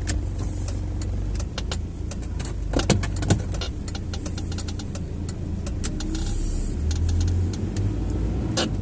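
Car engine and road rumble heard from inside the cabin as the car idles, then grows louder near the end as it pulls away. A scatter of sharp clicks and knocks sits over it, the loudest two about three seconds in.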